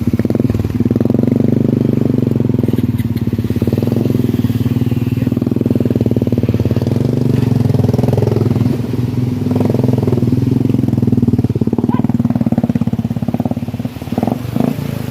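Motorcycle engine running steadily at a constant speed, with a fast even beat of firing pulses; it eases off about fourteen seconds in.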